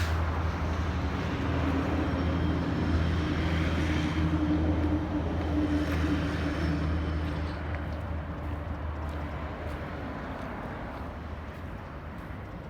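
A nearby engine running steadily with a low hum, fading away over the second half.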